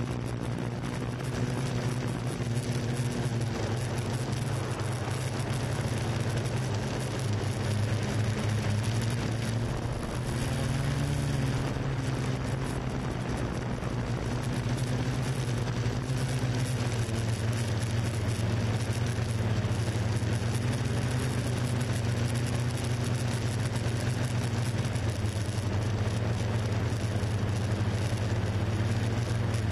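Yuneec Q500 4K quadcopter's electric motors and propellers humming steadily over a rushing noise, the pitch rising briefly about a third of the way through.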